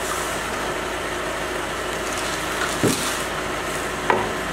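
A parked car's engine idling just outside the door, a steady hum and hiss, with two short knocks about three and four seconds in.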